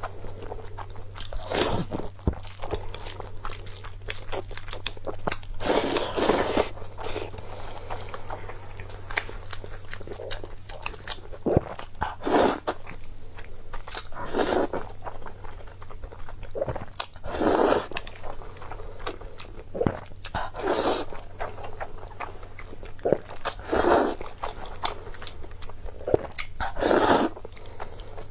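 Close-miked eating: a person chewing a mouthful, with louder crunching bites every few seconds. A low steady hum runs underneath.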